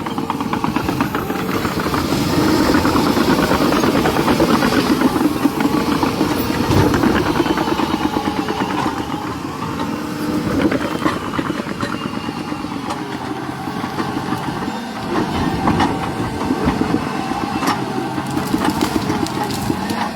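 John Deere 850K crawler bulldozer's diesel engine running under load, with a rapid, even engine pulse and a faint higher whine above it. It is loudest in the first half and eases off later, when a few sharp knocks come through.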